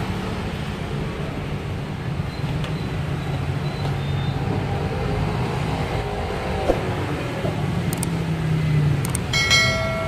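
Steady low rumble of background noise around a street food cart. Near the end comes a sharp click and a ringing, bell-like chime: the sound effect of a subscribe-button overlay.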